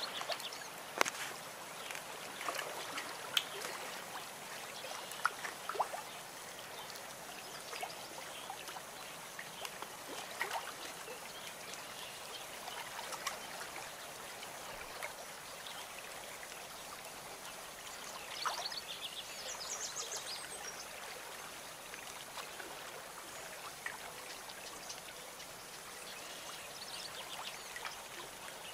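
Water trickling steadily in a small cement goldfish pond, with scattered small clicks and splashes as goldfish feed on floating pellets at the surface. Brief high chirps come in about two-thirds of the way through and again near the end.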